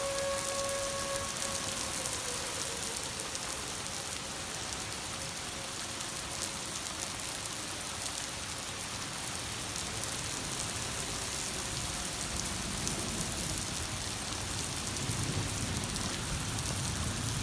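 Steady rain falling. An outdoor tornado warning siren's tone cuts off in the first second or two, then winds down, its pitch slowly falling.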